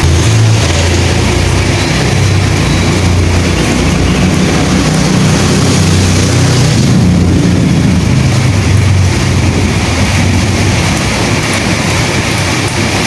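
Heavy rain falling steadily, with a deep low rumble underneath from the start that fades out about ten seconds in.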